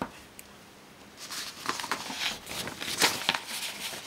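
A paper worksheet rustling and scraping as it is handled and shifted, in a series of irregular crinkly bursts starting about a second in.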